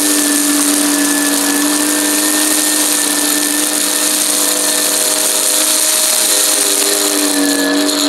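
Shark upright vacuum cleaner running steadily as it is pushed through a pile of gritty debris on a rug: the motor's hum under a dense hiss and crunch of grit being sucked up. The motor's pitch dips briefly about six seconds in.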